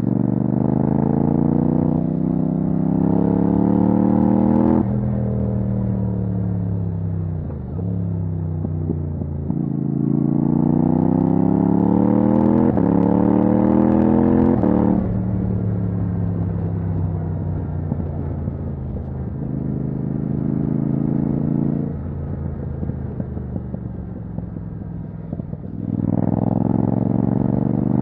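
Yamaha MT-07's 270-degree parallel-twin engine through a titanium Akrapovic exhaust with no dB killer, accelerating hard with revs climbing, dropping off as the throttle is rolled off, then climbing again. It runs at lower, steadier revs for several seconds before pulling hard once more near the end.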